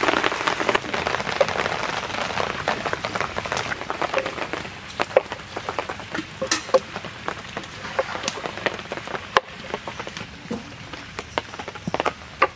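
Rain falling, with scattered heavier drops landing at irregular moments.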